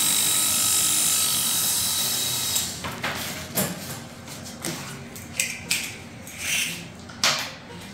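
Electric pet hair clippers buzzing steadily as they shave a small dog's fur, switched off about two and a half seconds in. After that, scattered short rustles and clicks.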